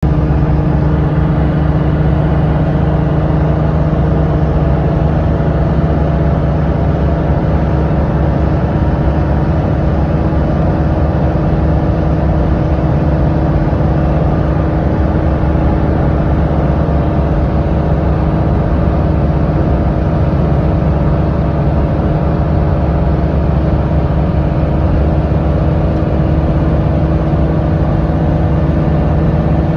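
Steady drone of a vehicle's engine and road noise during a ride, its pitch holding constant throughout.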